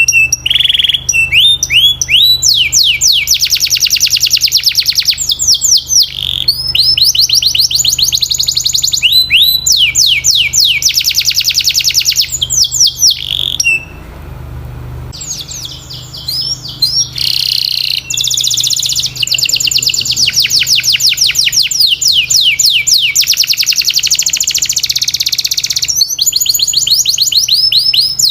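Domestic canary singing long, fast trills of rapidly repeated high notes, one roll after another, with a brief pause about halfway through.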